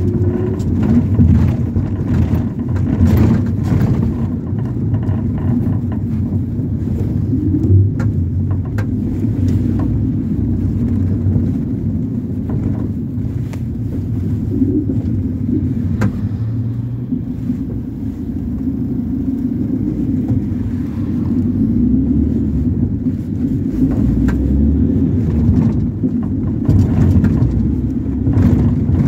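Interior of a Ford Transit minibus on the move: a steady low engine and road rumble, with scattered light clicks and rattles.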